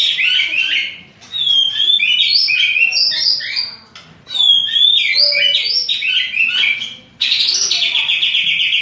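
White-rumped shama singing loudly in aggressive full song, as when provoked by a rival: rich, varied whistled phrases broken by brief pauses. Near the end the bird switches to a fast run of rapidly repeated notes.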